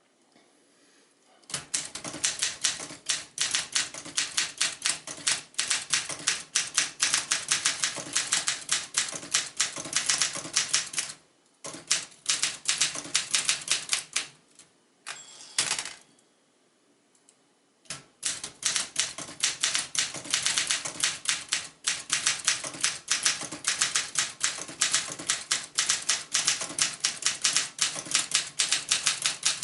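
1969 Olympia SM9 manual portable typewriter being typed on quickly, a steady stream of sharp keystroke clacks. Near the middle the typing stops, a single bell-like ring sounds with a clack, typical of the line-end bell and the carriage return, and then the rapid typing resumes.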